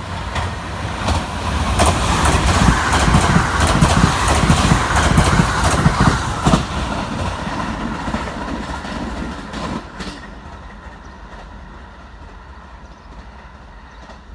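Electric train running past on the track, its wheels clacking over the rail joints. It swells to its loudest in the middle, then fades away over the last few seconds.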